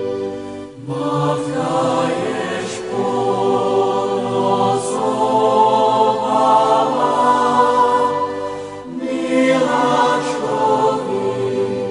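Background music of choral singing in long held notes, with a short break between phrases about a second in and another near nine seconds.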